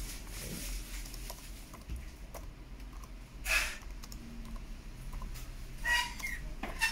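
Keystrokes on the Asus X55C laptop's newly fitted replacement keyboard, typed through the alphabet to test each key: scattered soft clicks, with two louder brief noises about three and a half and six seconds in.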